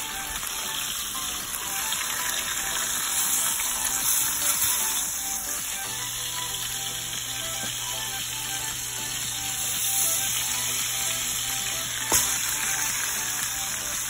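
Chuck roast searing in hot oil in an enamelled cast-iron Dutch oven, sizzling steadily while it is turned with tongs. A single sharp knock about twelve seconds in.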